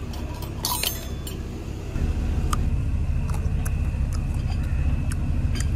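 A few light clinks of small glass jars with metal lids knocking in a wooden caddy, about a second in, followed by fainter ticks. From about two seconds a low steady rumble sets in, with a faint thin steady high tone above it.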